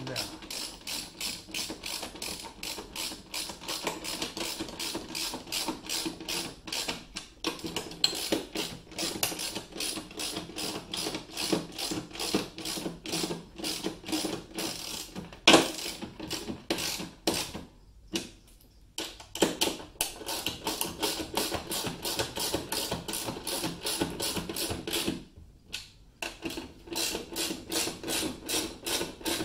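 Ratchet wrench clicking steadily, about four clicks a second, as nylock nuts are run down onto the bracket bolts. It stops briefly twice along the way.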